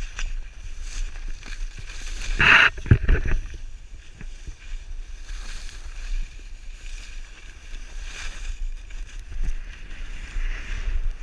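Skis hissing and scraping over packed snow at speed, over a steady low rumble of air on the camera. A louder scrape with a few low thumps comes about two and a half seconds in, as on a hard turn or a bump.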